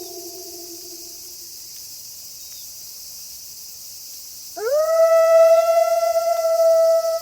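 Wolf howling: the tail of one howl slides down in pitch and fades out in the first second and a half, then about four and a half seconds in a new howl swoops sharply up and holds one steady pitch. A steady high hiss runs underneath.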